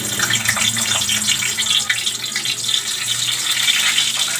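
Siomai deep-frying in hot oil in a pan: a loud, dense, crackling sizzle, with a low steady hum underneath.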